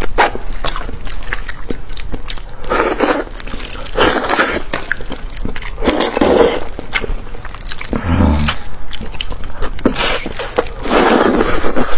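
Wet eating sounds of a person eating a large fish head: clicky chewing and lip-smacking, broken every couple of seconds by short sucking slurps.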